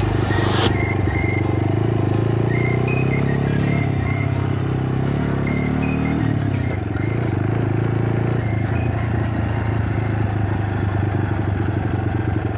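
Motorcycle engine running under way, its pitch climbing for a few seconds as it speeds up, dropping about six seconds in, then holding steady. A short rush of noise comes at the very start.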